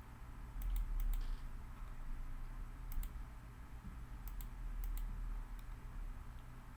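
Scattered clicking of a computer mouse and keyboard as a design is edited on screen: a handful of short clicks, several in quick pairs, over a steady low hum.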